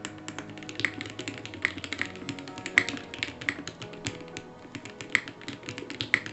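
Typing on a Neson 700E custom mechanical keyboard with an aluminium plate, foam-dampened case and Gateron Oil King linear switches: irregular keystrokes, several a second, with background music under them.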